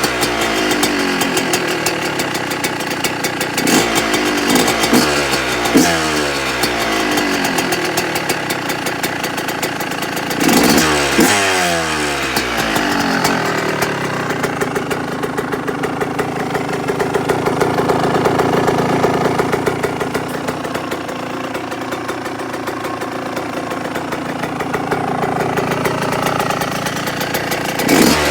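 A 2018 Yamaha YZ125's 125 cc single-cylinder two-stroke engine is blipped with the throttle several times, its pitch falling back after each rev, and then runs at a steadier, slightly wavering speed for the second half. It runs through a freshly repacked exhaust, with the idle set low on purpose, and the owner thinks it is running a little lean.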